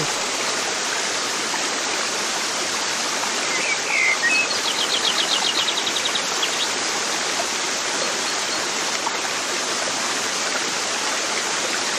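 Steady rushing of flowing water, like a stream, with a short bird chirp about four seconds in followed by a quick trill of about a dozen high notes.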